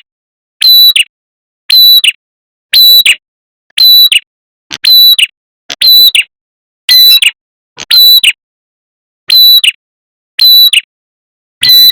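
Prenjak kepala merah (red-headed prenjak) calling as a bird-trapping lure: loud, short, sharp calls repeated evenly about once a second, each with a strong high note.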